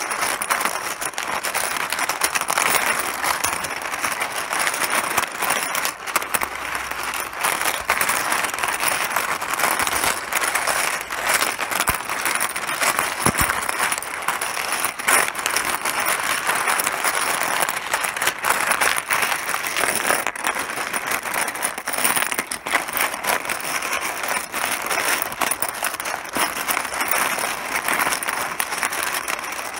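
Mahjong tiles clattering continuously against each other and the table: a dense, unbroken stream of small hard clicks.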